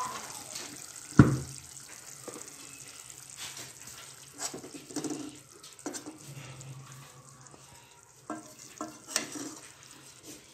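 Spoon and pan sounds from a pot of liquid chicken curry being stirred and served: one loud knock about a second in, then scattered clinks and scrapes over a wet, sloshing wash.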